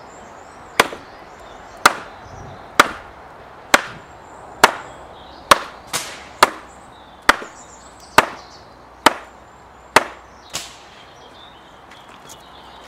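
Saw-backed Gerber machete chopping into a block of wet wood: about a dozen sharp chops, roughly one a second, the last one weaker.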